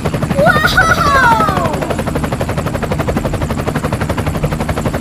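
Toy helicopter running, its spinning rotor making a fast, even rattle. About half a second in, a falling whistle-like tone joins it for about a second.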